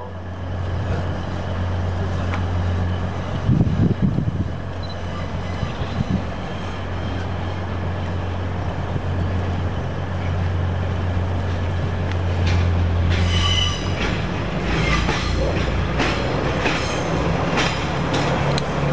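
Class 180 Adelante diesel multiple unit's underfloor diesel engines running with a steady low drone, with a short louder rumble about four seconds in. From about two-thirds of the way through, as the train draws past, wheel squeal and a quick run of clicks from the wheels on the track join the engine sound.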